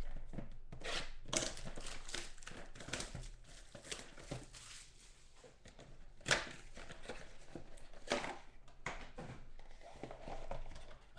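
Crinkling and rustling of a trading-card pack wrapper being torn open and handled, a run of short uneven crackles with the sharpest about six seconds in.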